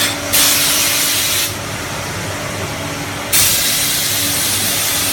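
Ultrasonic parts-washing machine in its turbulence stage: a loud hissing rush of agitation in the wash tank that drops back about one and a half seconds in and surges again a little past three seconds, over a steady machine hum.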